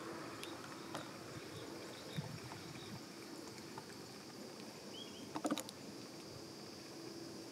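Quiet garden ambience: a steady high-pitched insect drone over a low steady hum, with a few faint clicks, the loudest a short cluster about five and a half seconds in.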